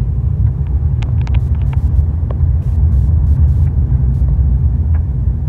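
Steady low rumble of road and engine noise inside a moving Toyota car's cabin.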